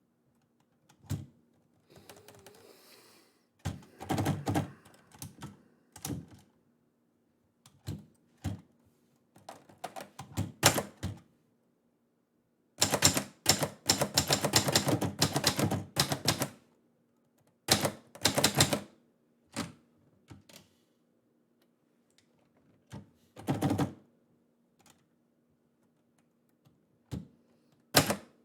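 Keys of a mid-1960s Florida typewriter being struck in irregular runs of rapid keystrokes with pauses between them, the longest run lasting about three seconds just before the middle.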